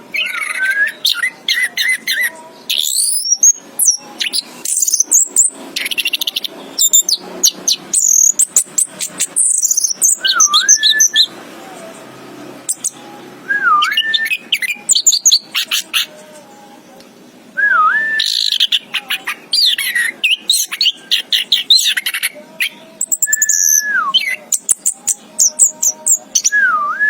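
Orange-headed thrush (anis kembang) singing: a loud, varied song of rapid high chirps and trills mixed with a repeated whistled note that dips and rises, broken by a couple of short pauses midway.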